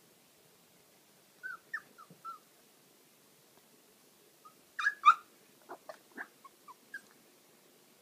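Puppy giving short high-pitched yips: a few around a second and a half in, two louder barks about five seconds in, then a string of shorter yips.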